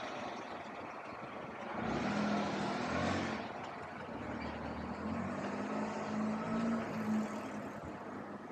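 Motor vehicle traffic on a narrow street: a vehicle's engine noise swells and fades about two seconds in, then an engine runs with a steady low hum that wavers slightly.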